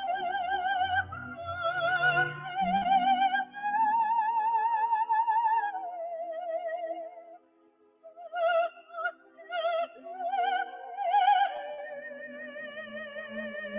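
Operatic soprano singing long, high notes with a wide vibrato over a quiet accompaniment. About seven seconds in the voice falls and stops for a moment, comes back in short broken notes, then settles on a long held note near the end.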